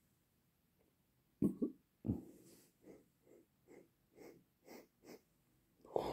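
A man sniffing repeatedly at an open tin of minty snus, short sniffs about two a second, after two knocks from handling the tin about a second and a half and two seconds in.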